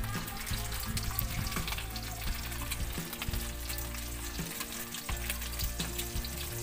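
Hotdogs frying in hot oil in a wok, sizzling steadily with many small crackles and pops throughout.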